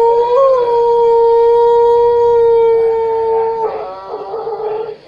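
Dog howling: one long howl that sweeps up and holds a steady pitch, then breaks into a wavering, quavering tail about three and a half seconds in before dying away.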